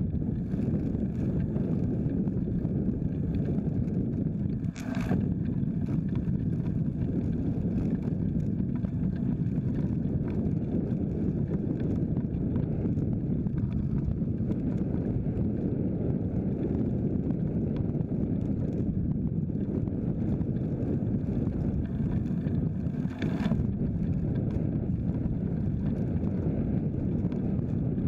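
Steady wind buffeting the microphone, together with tyre and road rumble from a folding bike riding on a concrete road. Two brief sharp knocks stand out, one about five seconds in and another about two-thirds of the way through.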